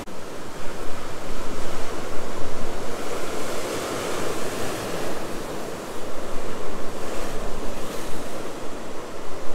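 Large ocean waves breaking and washing over a rocky shore close by, a dense rushing surf that surges twice: about half a second in and again about six seconds in.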